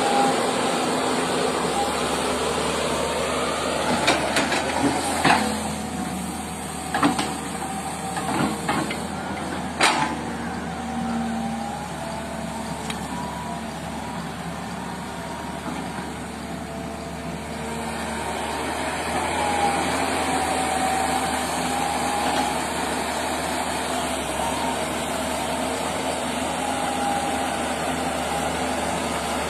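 Heavy diesel machinery, likely an excavator, running steadily with a faint wavering whine. Several sharp metal clanks come between about four and ten seconds in.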